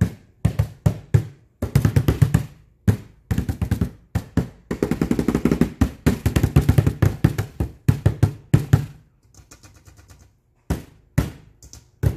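Hands drumming and slapping on a tabletop in quick bursts of strikes, with a fast continuous roll around the middle and softer taps near the end.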